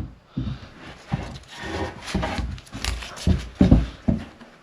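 Clamped wooden glue-up being handled and turned over on a workbench: a string of irregular knocks and thumps of wood and clamps against the bench.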